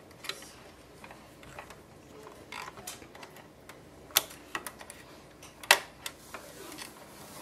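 Scattered small clicks and taps of plastic parts on an inkjet printhead carriage as a small screwdriver and fingers push a ribbon cable and chip board into place, with sharper clicks about four and six seconds in.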